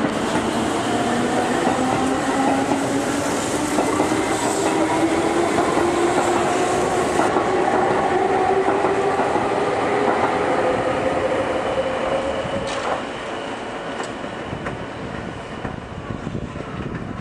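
Keihan electric train pulling away, its traction motors whining in a pitch that climbs slowly over about twelve seconds while the wheels clatter on the rails. The whine and rumble drop away after about thirteen seconds, with a few sharp clicks from the wheels.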